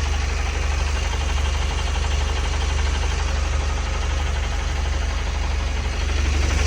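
GAZelle Next van's engine running steadily with a low hum.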